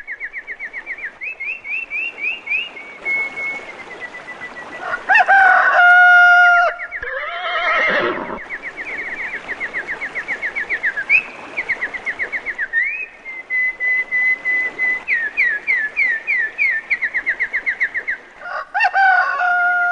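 A rooster crowing, a long call about five seconds in and again near the end, over a bird calling continuously in fast repeated chirps, like a farmyard at dawn.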